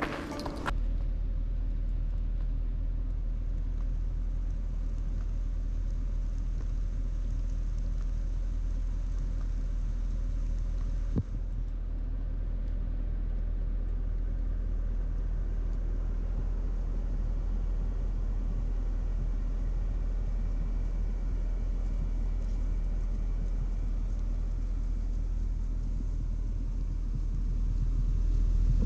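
Car running slowly on a wet road, heard from inside the cabin: a steady low rumble with a faint hiss over it. A single sharp click comes about eleven seconds in, and the rumble grows louder near the end.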